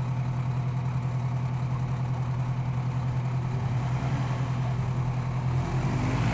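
Truck engine idling steadily with a low, pulsing hum. The engine note changes shortly before the end.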